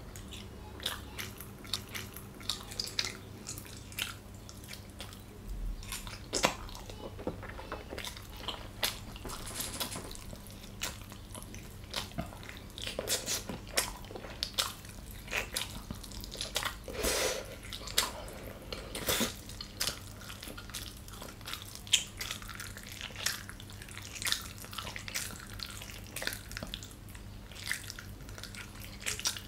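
Close-miked chewing of gyoza dumplings: an irregular run of short mouth clicks and smacks as the food is worked in the mouth.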